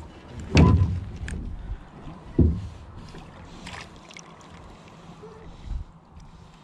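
Two dull thuds on a small fishing boat, a little under two seconds apart, with light knocks and handling noise around them.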